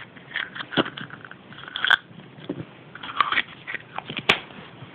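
Hands unwrapping and opening a Kinder Surprise egg: irregular crinkling and crackling of the foil wrapper and the plastic toy capsule, with two sharp clicks, one about two seconds in and one near the end.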